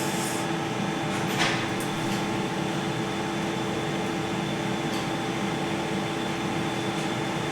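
Steady mechanical hum with several steady tones running underneath, and a brief faint rustle about one and a half seconds in.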